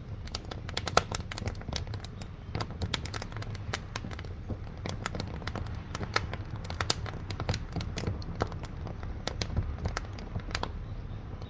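Wood fire in a wood-burning stove crackling: irregular sharp pops and snaps, several a second, over a steady low rumble of the flames.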